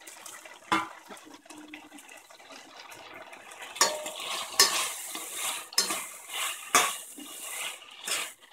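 Metal slotted spoon clinking and scraping against a stainless steel pressure cooker as paneer cubes are stirred into the masala: one sharp clink near the start, then a run of clinks and scraping from about four seconds in.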